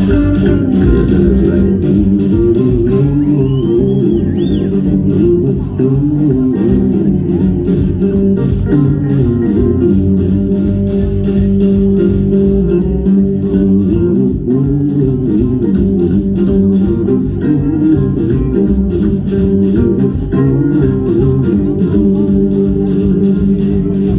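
Live country band playing an instrumental passage with no singing: a Telecaster-style electric guitar over upright bass, drums keeping a steady beat, and pedal steel.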